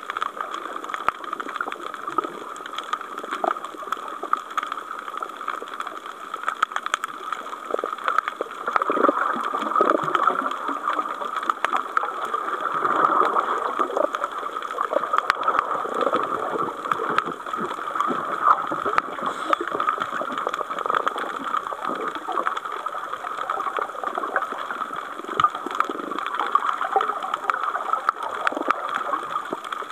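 Underwater ambience picked up by a camera on the sea floor: a constant watery hiss with irregular bubbling and gurgling swells, louder after the first several seconds, and fine scattered clicks.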